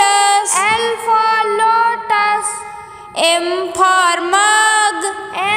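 A high voice singing an alphabet song, 'L for lotus', in two short held phrases with a pause between them.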